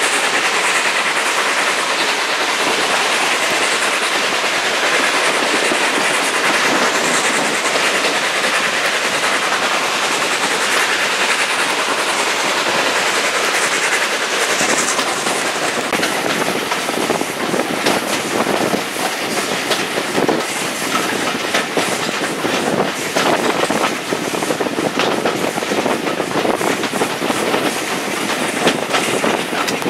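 Steam-hauled heritage train running, heard from an open carriage window: a steady rush of motion with the clickety-clack of the coach wheels over rail joints. The clicks grow more distinct and uneven from about halfway through.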